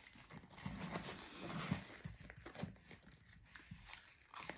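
Foil sandwich wrapper crinkling and rustling faintly as it is handled and unwrapped, with small irregular crackles.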